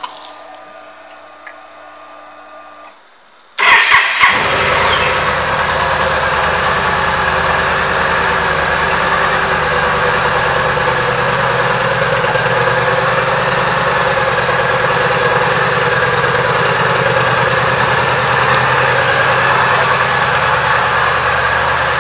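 The 2012 Yamaha V Star 950's air-cooled V-twin engine is started about three and a half seconds in. It catches at once, with a few brief peaks, and then idles steadily. Before the start there is a faint steady hum.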